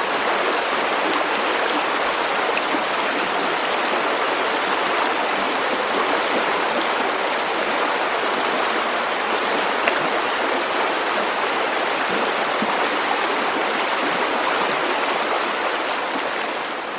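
River water flowing, a steady even rushing with no breaks; it fades out near the end.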